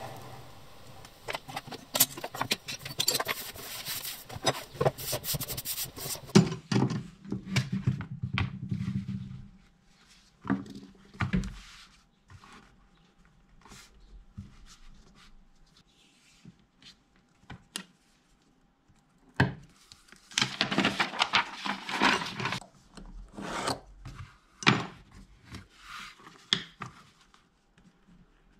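A hand leather tool scraping along the edge of a leather piece in a dense run of scrapes and clicks. This is followed by the handling of a finished leather pouch: leather sliding and flexing on a board, with scattered taps and clicks.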